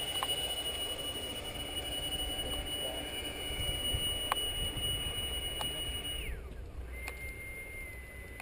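Electric ducted fan of a Parkzone Habu RC jet, fitted with a Change Sun 10-blade rotor, running at high power: a steady high-pitched whine. About six seconds in the pitch drops and then holds at a lower note.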